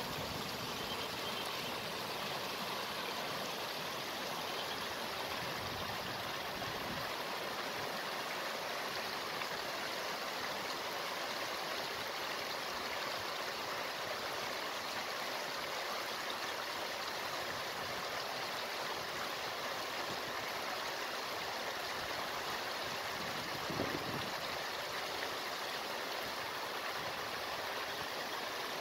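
Water rushing steadily over a low rock ledge into a lake, an even splashing rush.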